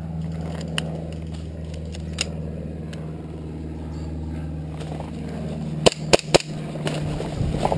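Brush rustling over a steady low hum, then three quick sharp airsoft pistol shots about six seconds in.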